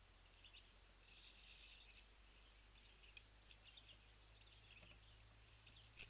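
Faint chirps and twittering of small songbirds, scattered throughout in short notes, over a steady low hum.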